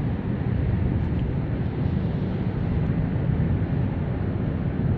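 Wind buffeting the microphone: a steady, loud low rumble with no distinct engine note.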